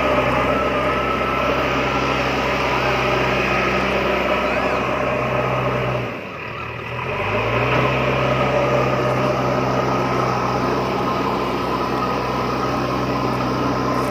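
A tractor-style engine running steadily with a low even hum. About six seconds in it drops away briefly, then picks back up to the same steady pitch.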